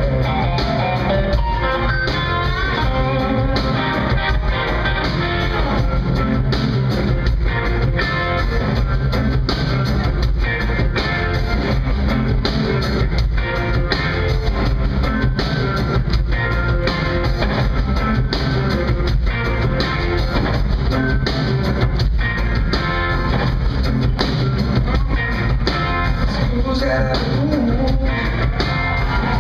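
Live rock band playing a guitar-led passage: electric guitars over bass and drum kit.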